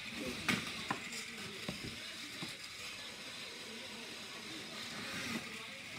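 HEXBUG BattleBots toy robots driving and fighting in a plastic arena: a steady whir of their small motors and gears, with a few sharp clicks in the first couple of seconds as they knock together.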